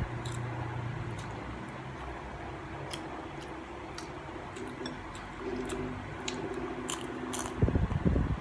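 A person chewing and biting food close to the microphone, with scattered sharp crunchy clicks. The chewing grows louder near the end, over a faint steady hum.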